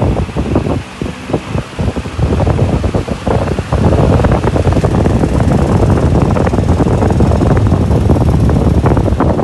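Arge 60 cm oscillating wall fan running, its airflow buffeting the microphone as a loud, gusty rumble. The blast gets stronger and steadier about four seconds in.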